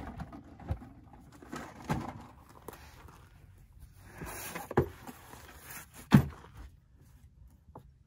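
Recovery gear being handled in a vehicle's rear pull-out cargo drawer: a series of knocks and thumps with rustling, the loudest knock about six seconds in.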